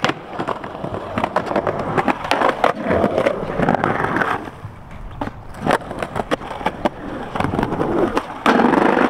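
Skateboard wheels rolling on concrete, with many sharp clacks of the board hitting the ground as flat-ground tricks are tried. The rolling gets louder near the end.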